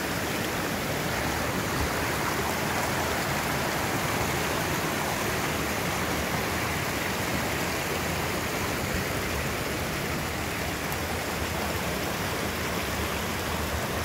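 Small mountain stream running fast over boulders and little cascades: a steady rush of water.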